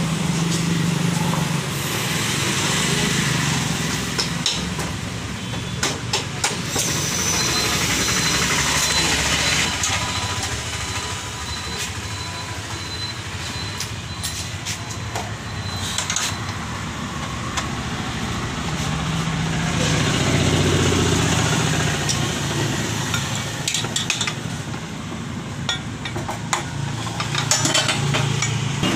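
Occasional metal clicks and knocks as a motorcycle rear wheel is fitted back onto its axle, over a steady background of a running engine.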